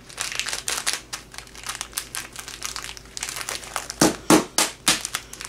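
Wrappers of frozen Hershey chocolate bars crinkling as they are handled. About four seconds in come a run of blows from a wooden mallet pounding the wrapped bars on a padded mat, about three a second, breaking up the frozen chocolate.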